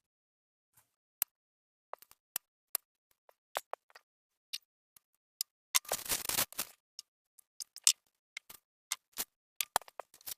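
Irregular sharp pops and crackles from a paratha frying in a pan, with a denser cluster of crackling about six seconds in.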